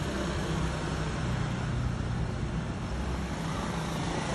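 Steady street traffic noise: a low engine rumble that swells a little as vehicles pass.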